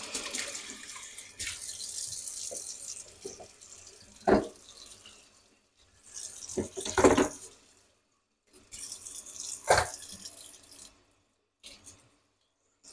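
Kitchen tap running into a stainless steel sink during hand dishwashing, the water stopping and starting several times. Three sharp clinks of dishes against the sink, about four, seven and ten seconds in.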